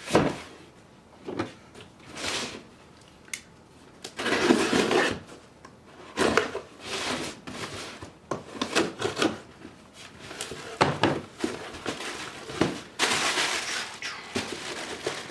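Cardboard and plastic packaging being handled: irregular rustling and scraping with a few sharp knocks as boxes are moved and opened.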